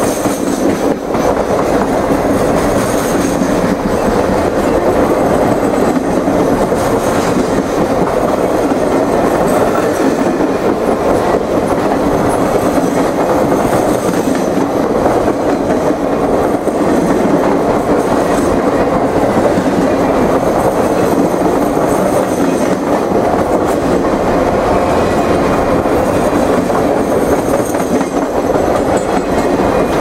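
Triple Crown RoadRailer trailers rolling past close by on their rail bogies: a loud, steady rumble of steel wheels on rail, with occasional clicks as wheels cross rail joints.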